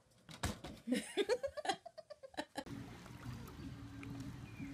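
A woman laughing in quick short bursts, with a couple of sharp clicks at the start. After about two and a half seconds it gives way to a steady low hum.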